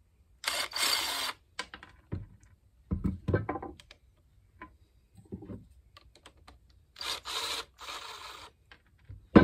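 Cordless drill with a socket spinning out the small 7/16 bolts on the bottom of a Ford Model A oil pump, in two runs of about a second each. Between them come clunks and knocks of the pump and parts being handled on the bench.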